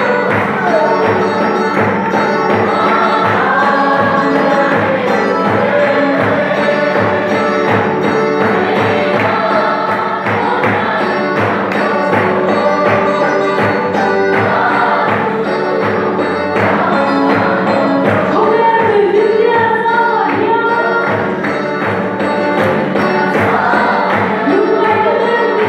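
A congregation singing a lively hymn together, over a steady drum beat and keyboard.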